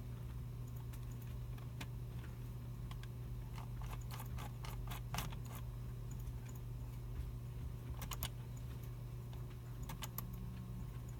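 Computer keyboards and mice clicking in a computer room: scattered keystrokes, a quick run of typing in the middle and short bursts of clicks later, over a steady low hum.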